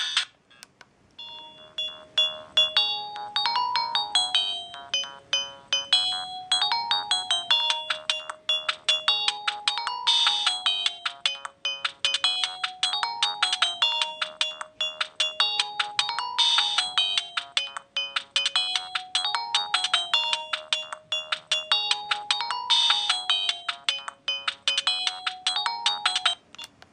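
Siemens A31 mobile phone playing a ringtone through its loudspeaker: a synthesized melody with several notes at once, its phrase repeating about every six seconds. It starts about a second and a half in and stops shortly before the end.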